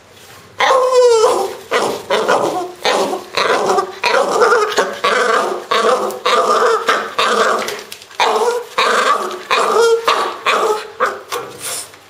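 French bulldog making a rapid string of short growling grunts and yelps, about two a second, while play-tugging a rubber toy in its mouth, with a sliding whine about a second in and another near the end.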